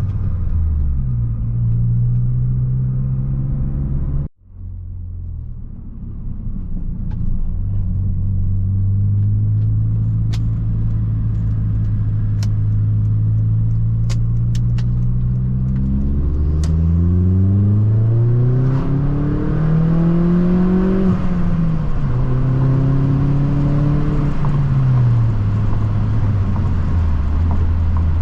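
Opel Astra G Bertone's 2.0 turbo four-cylinder engine running on the move. The sound cuts out briefly about four seconds in, then the engine holds a steady note. Later its pitch climbs as it accelerates and falls back, while road and wind noise grow.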